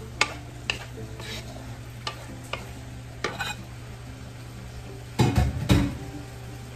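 Wooden spoon scraping and clicking against a nonstick wok as shrimp and vegetables are stir-fried, over a low sizzle. A few louder, heavier knocks come about five seconds in.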